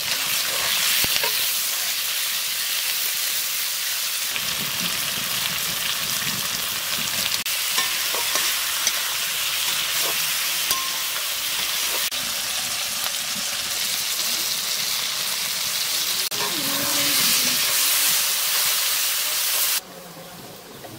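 Fish frying in hot oil in a pan: a steady sizzle with a few light clicks. It cuts off abruptly near the end.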